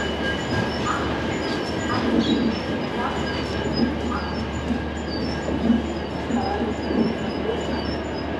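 Passenger train pulling slowly out of a station: steady running noise of the coach, with a light knock about once a second through the first few seconds.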